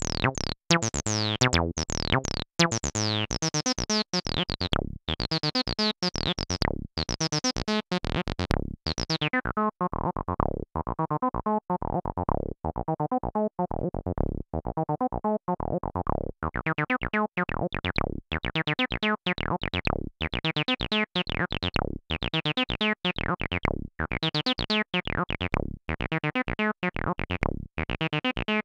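Behringer TD-3 analog bass line synthesizer sequencing a preset acid bassline on its sawtooth wave: a steady run of short notes, each opening with a falling filter sweep. The filter cutoff is turned down about a third of the way in, dulling the notes, and opened up again later on.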